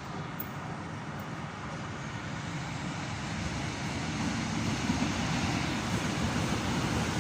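Train approaching along the station tracks: a steady rumble that grows gradually louder, with a low steady hum coming in near the end.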